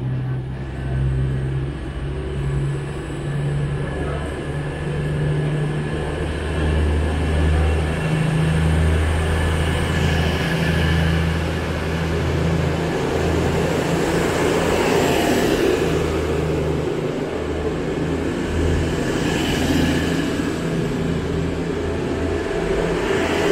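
East Midlands Railway Class 222 Meridian diesel multiple unit departing, its underfloor diesel engines droning steadily as the coaches pull past. The rushing noise swells twice as the cars go by.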